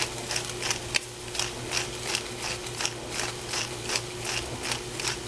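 Hand-held pepper grinder being twisted, its burr mechanism grinding black pepper in a regular series of ratcheting clicks, about three a second, over a steady low hum.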